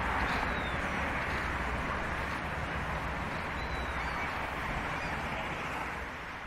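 Outdoor street ambience: a steady hum of road traffic and pedestrians, with a few faint bird chirps. The sound starts to fade out near the end.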